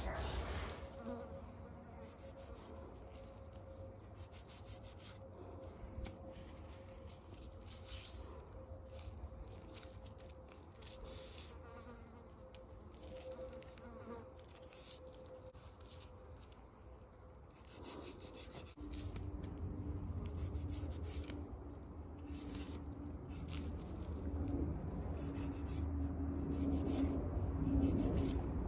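A long knife cutting and scraping through a whole salmon, heard as many short rasping strokes. Behind it runs a steady buzzing hum that drops to a lower pitch about two-thirds of the way through.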